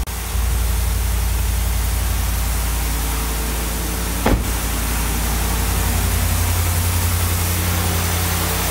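2019 Ram 1500 Rebel's 5.7-litre Hemi V8 idling steadily just after an oil change. A single sharp knock sounds about four seconds in.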